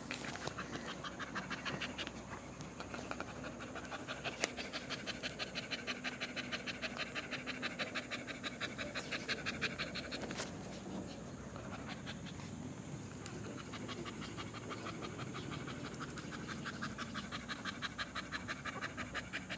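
A dog panting fast and steadily, about four breaths a second, easing briefly about ten seconds in.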